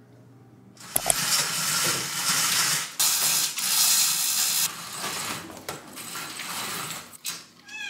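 A roller shade being pulled down over a glass door by its cord chain, a loud rattling, clicking run that stops shortly before the end. A cat meows near the end.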